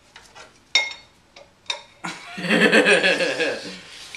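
Metal clutch parts and tools clinking against the flywheel of a Datsun 260Z engine, with a short ringing clink about a second in and another shortly after. About two seconds in comes a louder, denser sound lasting about a second and a half, the loudest thing here.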